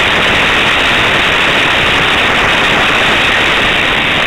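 Loud, steady rushing noise with no clear tone and a dull top end, picked up by a tiny low-quality camera riding along a toy race track with a Hot Wheels Boneshaker. It stops suddenly near the end.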